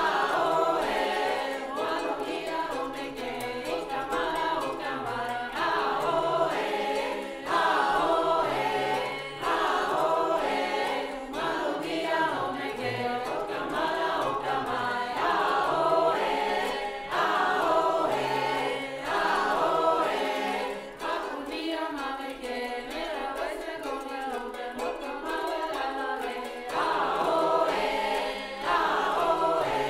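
Mixed choir of men's and women's voices singing a song in the Lani language of West Papua.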